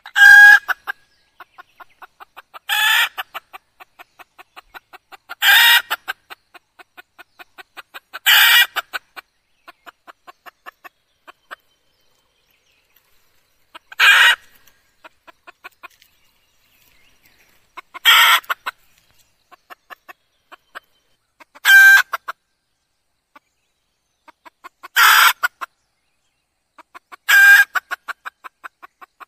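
Female red junglefowl (jungle hen) calling: a short loud call every few seconds, nine in all, with soft, quick clucks running between them.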